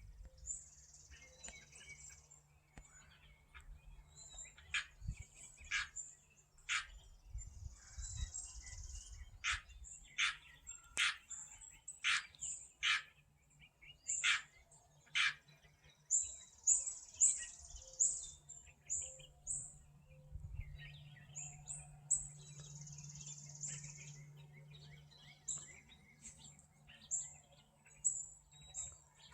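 Songbirds chirping: many sharp, high chirps and short fast trills, coming in irregular runs, with a steady low hum underneath.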